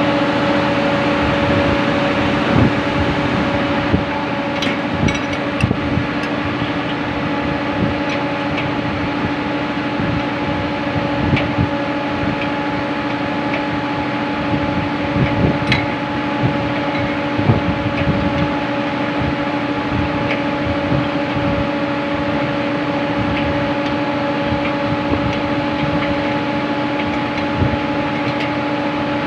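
Diesel engine-room machinery running with a steady loud hum and drone. Occasional short clicks and knocks sound over it, several between about 4 and 18 seconds in.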